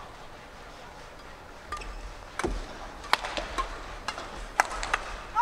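Badminton hall ambience between rallies: a low hush, then from about two seconds in a handful of scattered sharp clicks and knocks.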